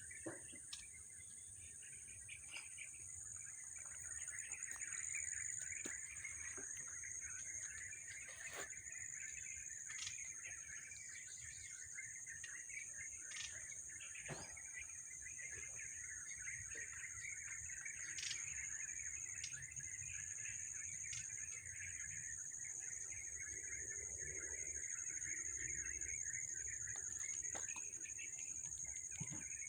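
Many birds chirping and twittering in a dense, continuous chorus, over a steady high-pitched whine.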